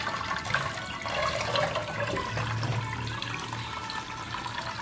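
Cold tap water running steadily onto fresh chhana curds in a mesh sieve, rinsing them so the curds stay soft.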